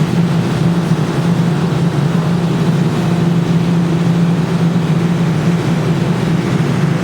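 Claw machine running with a steady, unbroken low motor hum and whirr.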